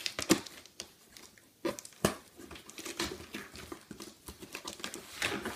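Hands tearing packing tape and prising open the flaps of a cardboard box: irregular rustles, scrapes and short sharp rips, the sharpest about a third of a second in and about two seconds in.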